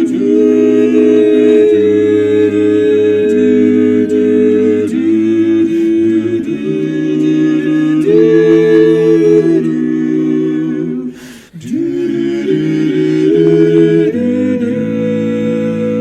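Men's a cappella voices singing wordless, sustained chords in barbershop harmony, the chord changing every second or two. There is a brief break for breath about eleven seconds in.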